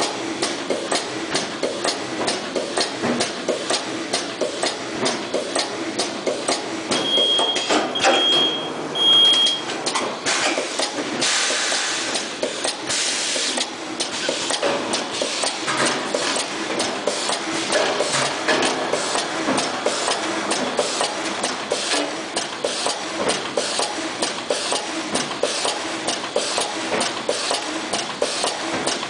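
YDA2 T-shirt plastic bag sealing and cutting machine running, a steady rapid clatter of clicks. Three short high beeps sound about 7 to 9 seconds in, and a hiss lasting about two seconds follows around 11 seconds in.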